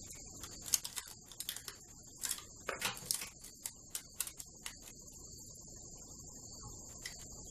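Aluminium foil shielding tape crinkling and crackling in irregular clicks as fingers press it into a guitar body's control cavity, the crackles dying away about five seconds in. A steady high-pitched background tone runs underneath throughout.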